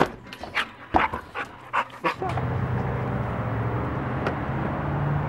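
A dog giving several short, sharp barks and yips. About two seconds in, a cut brings in the steady low hum of a car engine running.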